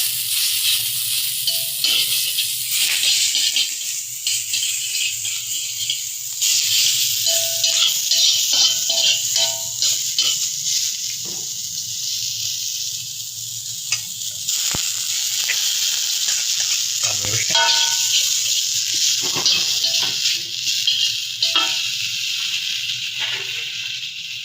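Fried rice sizzling as it fries in hot oil and is stirred, a steady hiss with occasional sharp clicks.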